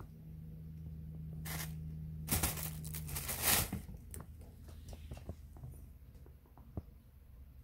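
Thin plastic bags crinkling and rustling as a kitten pounces and hops on them: a short rustle about one and a half seconds in, then a longer, louder stretch of crinkling a second later.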